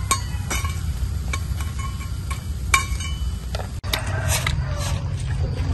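Scattered light clicks and clinks of a metal spatula against a wire strainer as fried cakes are served, some with a brief ringing tone, over a steady low rumble.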